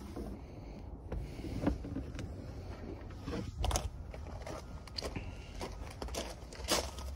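Footsteps crunching on loose gravel, irregular steps with small crackles and scrapes.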